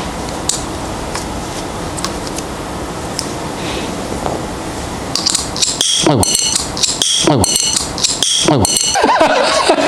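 Faint clicks and taps of small metal camera parts being handled over a steady hiss, then, about five seconds in, a louder string of repeated falling tones, an added comic sound effect.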